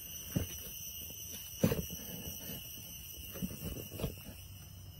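Steady high-pitched trilling of insects in the undergrowth, with a few soft thumps, the loudest about a second and a half in.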